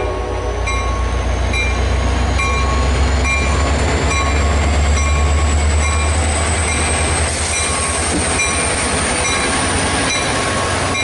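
A train running on rails with a steady low rumble and a thin high whine that slowly rises in pitch. Short clicks repeat about once a second.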